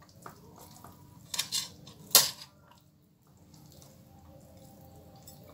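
Metal spoon clinking against a stainless steel plate: a couple of short clinks about a second and a half in and a sharper one just after two seconds, amid faint handling of rice stuffing and raw chicken.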